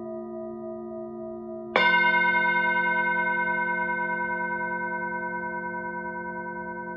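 Singing bowl struck once about two seconds in, over the ringing of an earlier strike; the new tone rings on with a slow regular waver, fading gradually.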